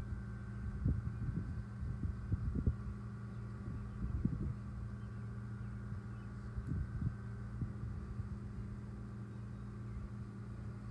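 A steady low hum with irregular soft low thumps, most of them in the first half.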